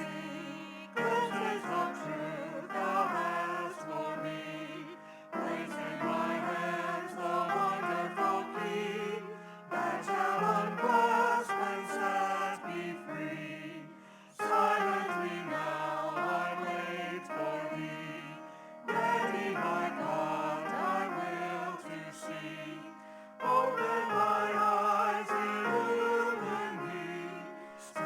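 Choir singing a sacred song in phrases of about four to five seconds.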